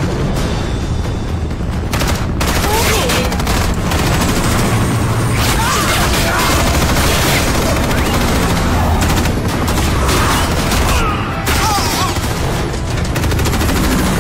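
Film action soundtrack: sustained rapid gunfire with occasional booms, mixed over loud background music.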